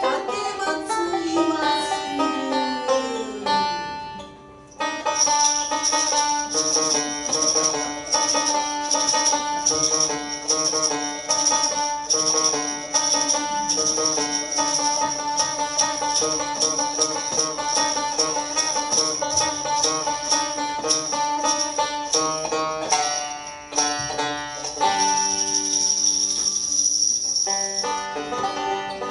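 Instrumental music on a plucked string instrument, a fast run of picked notes. The playing breaks off briefly about four seconds in and again near the 24-second mark.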